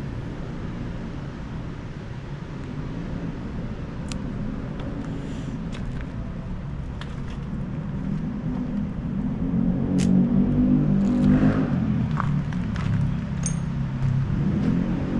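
Low rumble of road traffic, swelling louder about two-thirds of the way through, with a few light clicks scattered over it.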